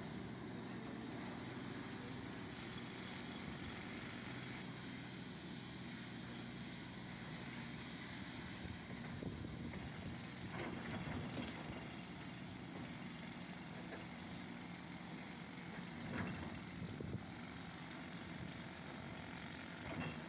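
Volvo EC480DL excavator's diesel engine running steadily, with a few sharp knocks, the loudest about halfway through and near the end.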